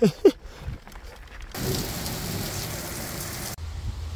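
Two short, loud cries falling in pitch right at the start, then a steady rush of heavy rain for about two seconds that cuts off suddenly, followed by a low rumble.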